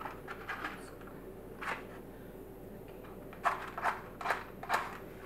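A box of matches handled and a match struck against its side: one short scrape, then four quick scrapes about half a second apart as the match is struck to light it.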